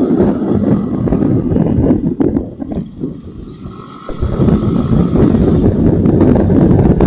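Motorcycle engine and exhaust running hard, easing off for a moment about three seconds in, then building up again.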